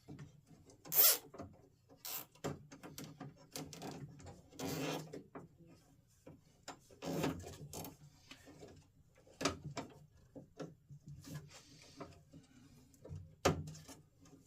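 Irregular clicks, taps and knocks from hands working the latch mechanism of a Jeep YJ hard door, with a few short rasping pulls as zip ties are threaded through and tightened.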